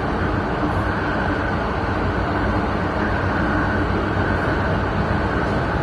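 MTR Tsuen Wan line train running steadily between stations, a continuous rumble of wheels and motors heard from inside the passenger car.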